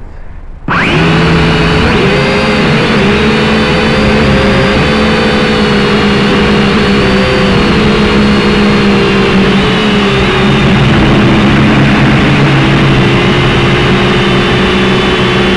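A small drone's electric motors and propellers start suddenly about a second in, then run loud and steady as it lifts off and flies, heard through its own on-board microphone. The whine's pitch wavers a little as the rotor speeds shift.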